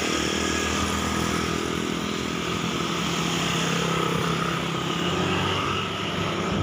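Motorcycle engine running steadily at cruising speed, heard from the rider's seat, with wind rushing over the microphone.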